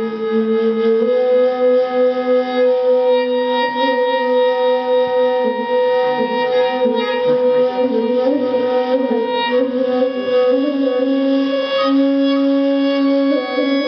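Live instrumental music: a slow melody of long held notes that bend and waver, over steady higher sustained tones.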